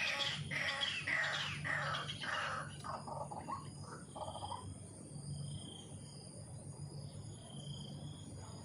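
Birds calling: a run of harsh, falling calls about twice a second for the first four seconds or so, then fainter, short high notes.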